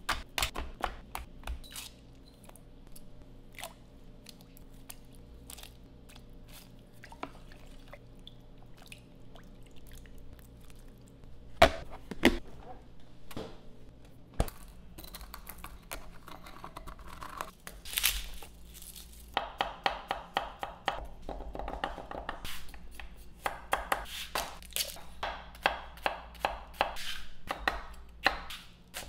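Kitchen prep sounds. First, scattered clicks of a knife and raw chicken being handled on an aluminium sheet pan. Then a couple of sharp clunks from a refrigerator door. Last, a chef's knife slicing chili peppers on a wooden cutting board in quick, rhythmic cuts.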